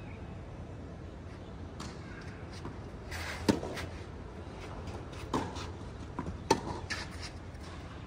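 A few sharp knocks of a tennis ball being struck or bouncing, at irregular gaps of one to two seconds, the three loudest in the middle and latter part, over a steady low background.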